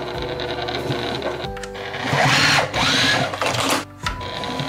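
A Juki TL-2010Q straight-stitch sewing machine running, its needle stitching through thick fabric, with background music over it. The sound breaks off briefly near the end, then picks up again.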